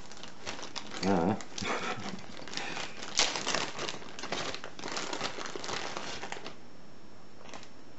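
Packaging crinkling and rustling as a parcel's contents are unwrapped and handled, in irregular crackles that stop about a second and a half before the end.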